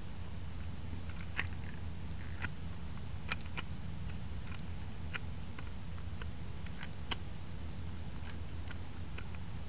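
Scattered light crackles and clicks of dry grass and fallen leaves being disturbed, about a dozen at uneven intervals, over a steady low rumble.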